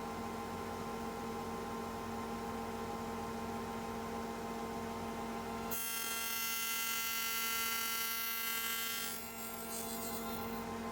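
Spindle moulder running steadily with a hum and overtones. For about three seconds in the middle it turns harsher and brighter.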